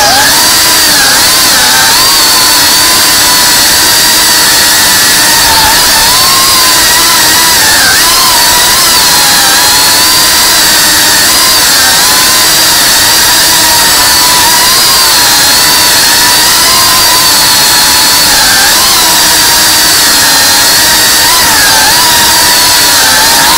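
Cinewhoop FPV drone's brushless motors and ducted propellers whining loudly and steadily, the pitch wavering up and down as the throttle changes in flight.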